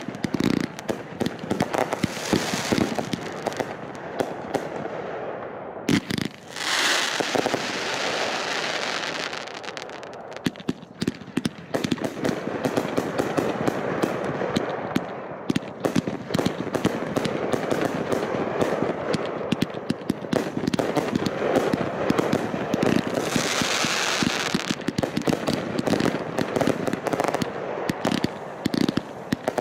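Fireworks going off in a long continuous stream of rapid crackling and popping, with louder spells of hissing a few seconds in and again near the end.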